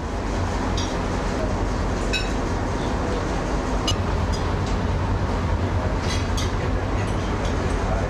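Cutlery clinking against plates a handful of times over the steady low drone of a ship's engine heard inside the mess room.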